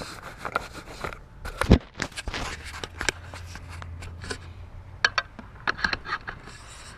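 Scattered clicks, knocks and scrapes of hands working metal gate hardware, with a low steady hum for about two seconds in the middle.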